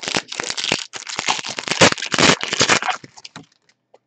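A 2020 Panini Diamond Kings baseball card pack being torn open by hand, its wrapper crinkling and ripping loudly for about three seconds before dying away.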